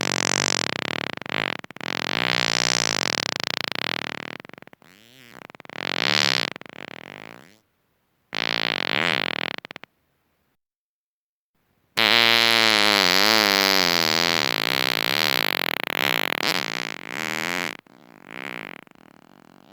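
A run of about five human farts, each a buzzing, pitched sound that wavers in pitch, separated by short gaps of silence. The longest comes about two-thirds of the way in, lasts around six seconds and is the loudest; a fainter, shorter one follows near the end.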